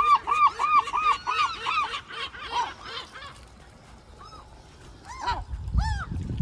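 Gulls calling: a fast run of about eight arched, yelping notes in the first two seconds, with other gulls overlapping. Scattered calls follow, with a couple more about five to six seconds in.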